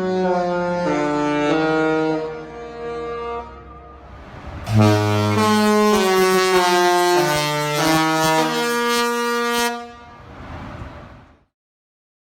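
Disney Magic cruise ship's melody horn playing a tune in two phrases of long, stepping notes, the second starting about five seconds in. A brief fading echo follows, then it cuts off.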